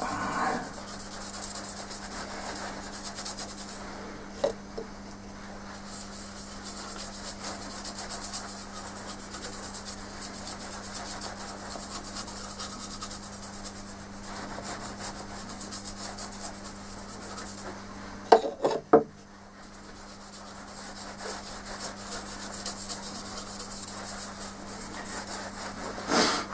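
Paintbrush scrubbing spirit stain onto a wooden bowl: bristles rubbing on the wood in a steady scratchy hiss with short pauses. Two sharp knocks come about two-thirds of the way through.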